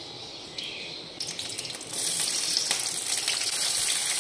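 Sliced onions and green chillies frying in hot oil in a stainless steel kadai; the sizzle starts low and gets much louder and hissier about two seconds in.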